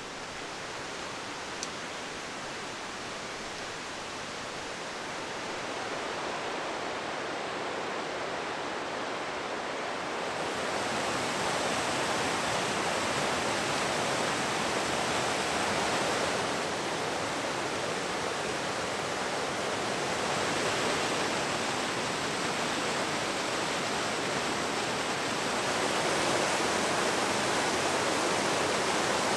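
Mountain stream rushing and cascading over rocks, a steady rush of water that grows louder about ten seconds in and again near the end.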